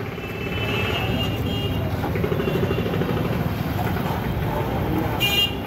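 Steel spatula scraping and chopping on a flat iron griddle as a long chila is cut into pieces, with a brief high metallic scrape a little after five seconds in. Under it runs a steady low rumble of street noise.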